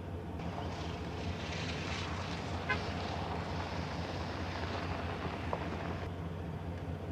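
Motor vehicle running with a steady low hum. A hiss of air or road noise comes in about half a second in and cuts off about a second before the end.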